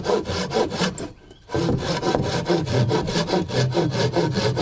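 Hand saw cutting through a wooden plank in quick, even back-and-forth strokes, about four or five a second, with a short pause about a second in before the sawing resumes.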